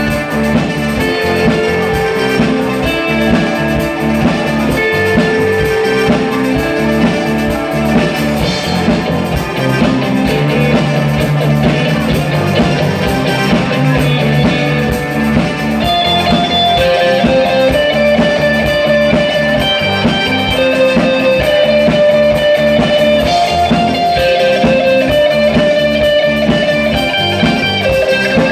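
Live new wave band playing: electric guitars with bass over a steady drum-kit beat.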